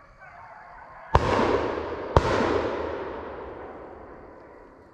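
Two gunshots about a second apart, each followed by a long rolling echo through the woods that dies away over a couple of seconds.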